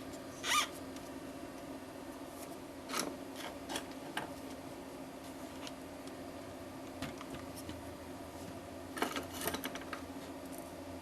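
Small clicks and scrapes of tools and parts being handled during work on a netbook's circuit board, over a steady hum. A short scratchy scrape about half a second in is the loudest sound, with a few light clicks around three to four seconds in and a quick cluster of clicks near the end.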